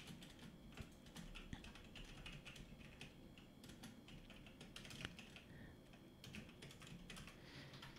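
Faint computer keyboard typing: a run of quick, irregular key clicks with short pauses between them.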